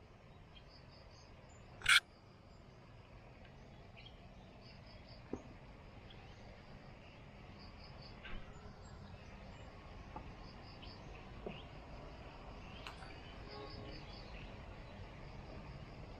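An insect chirping high in short pulsed groups every second or two over a quiet background. There is one sharp click about two seconds in and a few faint knocks.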